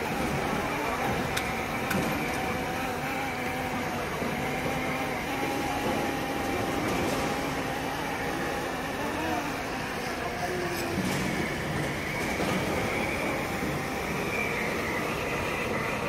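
TITIZ autonomous floor-scrubbing robot running as it scrubs a stone floor, a steady motor hum with a faint whine, over murmuring voices in the background.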